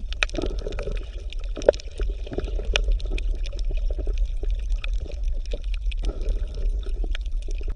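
Water bubbling and gurgling, full of small irregular pops, over a steady low hum.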